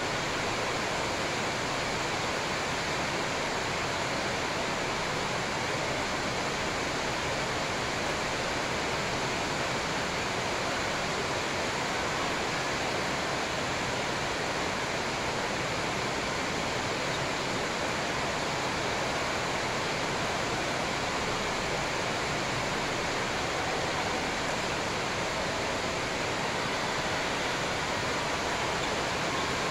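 A steady, even rushing hiss that never changes, with no shuttle hits, footsteps or voices standing out.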